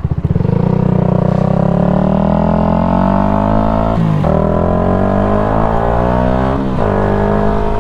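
Yamaha YZF-R125's single-cylinder four-stroke engine accelerating through the gears: the pitch climbs steadily, drops sharply at an upshift about four seconds in, climbs again, and drops at a second upshift near the end.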